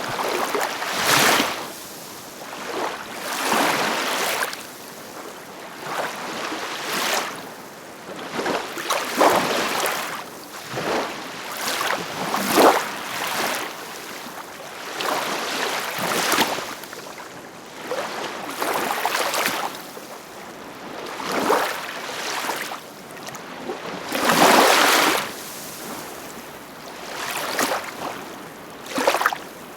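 Ocean waves breaking and washing in, surging up and falling away every two seconds or so, with the largest surge about three-quarters of the way through.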